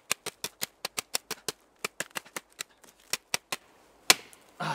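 Eickhorn KM2000 combat knife chopping through a branch in a rapid run of light, sharp strokes, about five or six a second, with one harder stroke about four seconds in.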